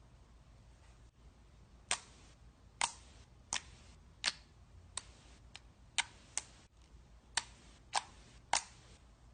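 A series of about eleven sharp pops from slime being pressed and squeezed, coming roughly one every two-thirds of a second, starting about two seconds in.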